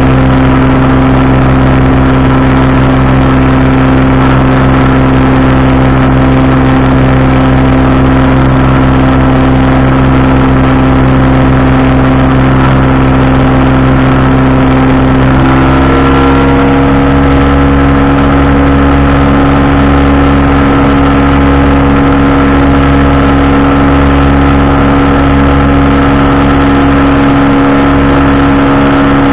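Powered parachute engine and propeller droning steadily in flight, the pitch stepping up slightly about halfway through as the engine speeds up.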